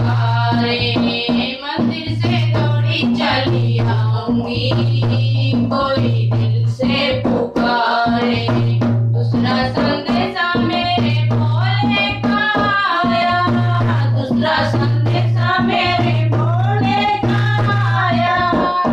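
Two women singing a Hindi devotional bhajan together, accompanied by a hand-played dholak, a two-headed barrel drum.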